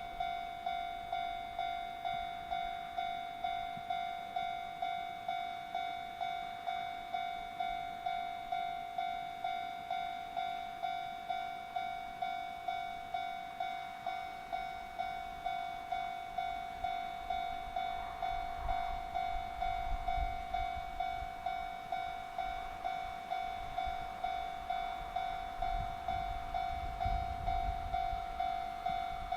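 Level-crossing warning bell ringing, a steady electronic ding repeated at an even rapid rate. A low train rumble builds in the second half as a train approaches.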